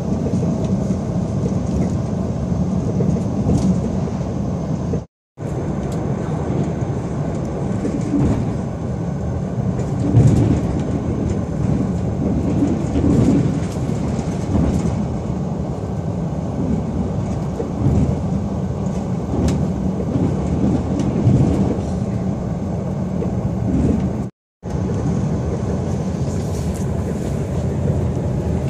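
Steady running noise of a passenger train, heard from inside the carriage, with irregular swells. The sound cuts out for a moment twice, about five seconds in and again near twenty-four seconds.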